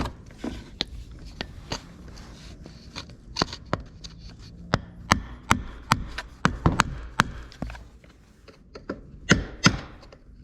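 Repeated sharp metal taps at uneven spacing: a hammer knocking over the small lock tabs on an ATV's steering shaft bushing. The strikes come quicker in the middle, pause briefly, then resume near the end.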